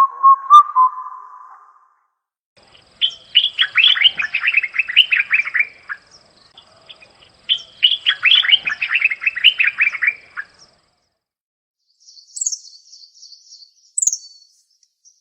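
Birds singing: a steady whistled note in the first two seconds, then two songs of rapid, descending notes about three seconds long each, and near the end a quick series of very high chirps.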